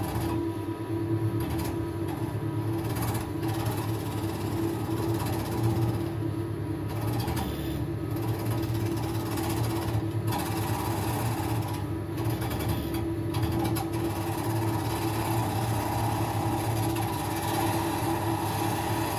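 Wood lathe motor running with a steady hum, while a hand-held turning tool scrapes against the spinning wood, the cutting noise easing off and coming back every few seconds.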